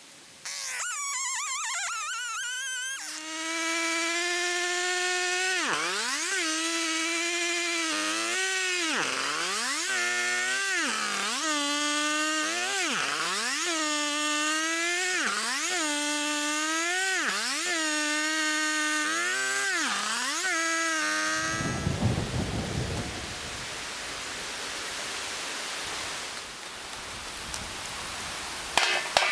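Husqvarna two-stroke chainsaw starting up and running at high revs, its engine note dipping and recovering again and again, about once a second, as the chain bites into birch logs. After about 21 seconds it gives way to a rougher rustling noise, with a few sharp cracks near the end.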